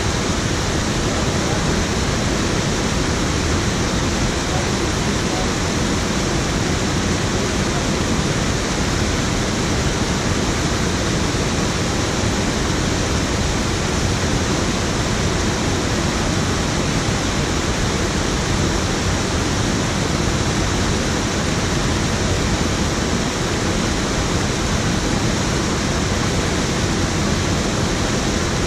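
Water pouring over a low concrete weir into a pool: a steady, even rush of falling water.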